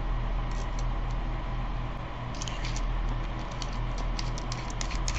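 Small fume-extraction fan running steadily, and from about halfway through a quick run of light clicks and scrapes as a fatter tip is screwed onto a soldering iron.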